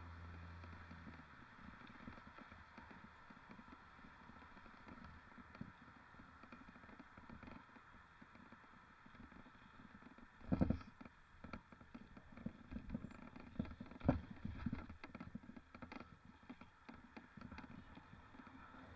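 Mountain bike rattling over rough ground: irregular knocks and clatter, with one louder thump about ten seconds in and a cluster of knocks a few seconds later. A low hum fades out in the first second or two.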